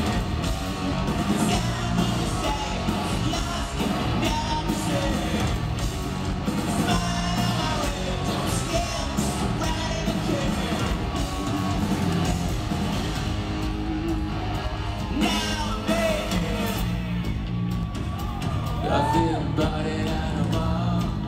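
Rock band playing live in a large hall, recorded from the crowd: electric guitars, bass and drums, with singing over the music.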